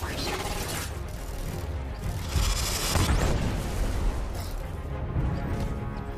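A film battle sound mix: explosions over a heavy low rumble, with music underneath. The loudest blasts come about two and a half and three seconds in.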